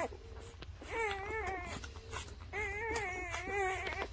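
Newborn puppies whimpering while nursing: a brief falling squeak at the start, then two long, wavering whines, one about a second in and a longer one from about two and a half seconds until near the end.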